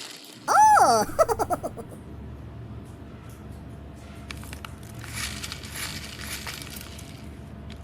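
A cartoon-style sound effect: a whistling swoop that rises and falls in pitch, followed by a quick run of fading bouncy blips. After that only a low hum and faint soft rustling remain.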